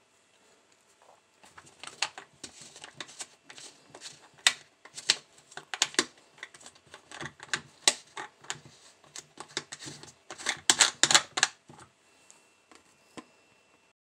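Irregular light clicks and taps of a plastic tub of ferric chloride etchant being handled, with a quick run of clicks near the end.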